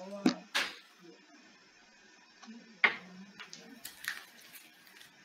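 A few sharp taps and clicks of craft materials (paper pieces, a glue stick) being handled on a table, heard through a video call; the loudest click comes about three seconds in.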